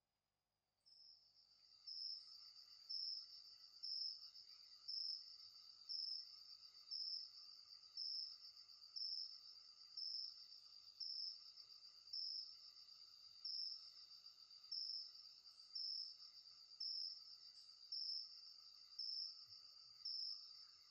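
Crickets chirping: a faint, steady high trill that swells into a louder pulse about once a second, starting about a second in.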